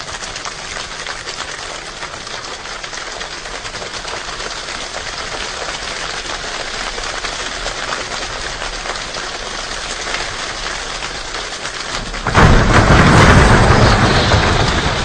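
Large choir imitating a rainstorm: a dense patter that slowly builds, then jumps suddenly to a much louder downpour about twelve seconds in.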